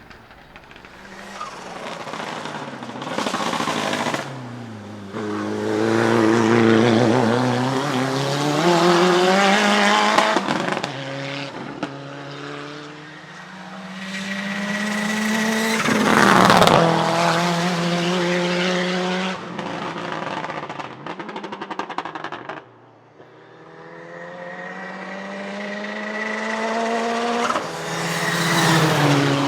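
Small turbocharged four-cylinder hatchback race car at full throttle on a hillclimb course, revving up through several gear changes. It is loudest about halfway through with a sharp crack as it passes. Near the end a second climbing run is heard, revving up through the gears again.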